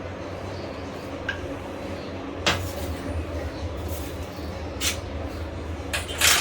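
A steady low rumble with a few short, sharp knocks or clicks: one about two and a half seconds in, one near five seconds and two close together near the end.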